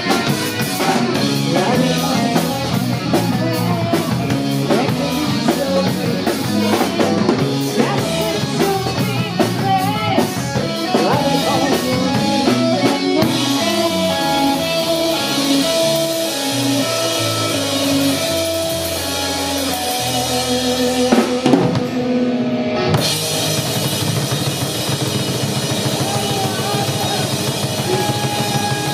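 Live rock band playing, with the drum kit and its cymbals to the fore. About two-thirds of the way through, the cymbals and high end drop out for a second or two, then the full band comes back in.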